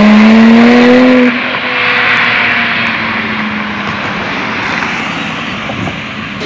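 Sports car accelerating hard past, its engine note climbing steadily in pitch until it cuts off abruptly about a second in. A broad rushing noise follows and slowly fades as the car pulls away.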